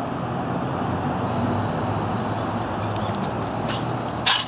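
A steady low mechanical hum, like a motor running, with a short loud noise about four seconds in.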